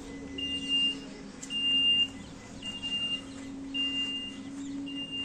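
An electronic warning beeper on an Eicher Skyline Pro CNG city bus beeping steadily, about one beep a second, over the steady hum of the bus's engine idling.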